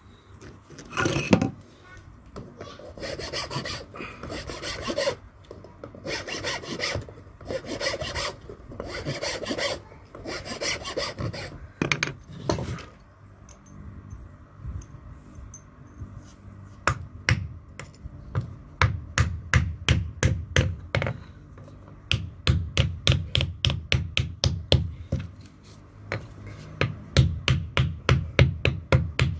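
Rough rasping strokes shaping a wooden chisel handle, about one a second, then runs of quick sharp hammer taps, about four a second, driving the handle onto the steel chisel.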